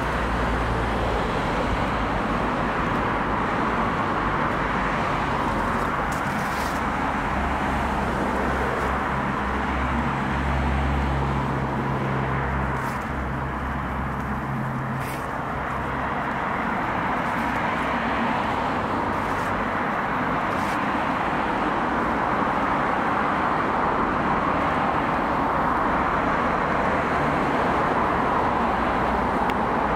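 Steady road traffic passing on a main road, mostly an even rush of tyre and engine noise, with a deeper engine drone from a passing vehicle between about a quarter and halfway through.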